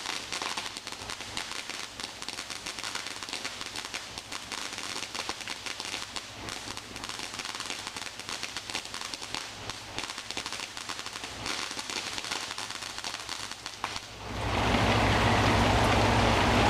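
Firework crackling: a dense, rapid stream of small pops that runs on, with rain falling. About 14 s in, a much louder steady rush of heavy rain sets in suddenly.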